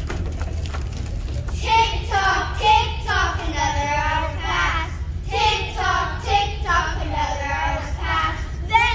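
Young children singing, in two long phrases with a short break about five seconds in.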